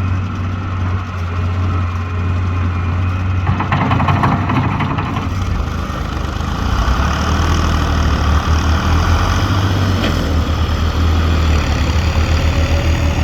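Hitachi EX100WD wheeled excavator's diesel engine running steadily, with a short noisy burst about three and a half seconds in. From about six seconds the engine grows louder and pulses, as if working under load.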